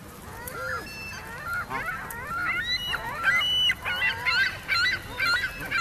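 Canada geese honking, a quick string of calls that grows denser and louder through the second half.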